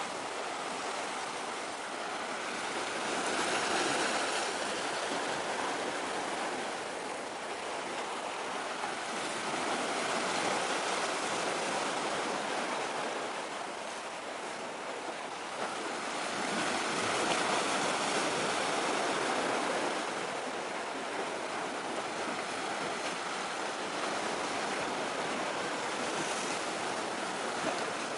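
Sea waves washing in, a steady rushing that swells and fades every six or seven seconds.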